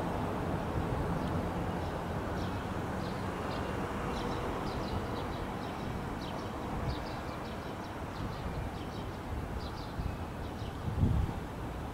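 Small birds chirping in short, quick calls over a steady low background rumble, with a brief low thump near the end.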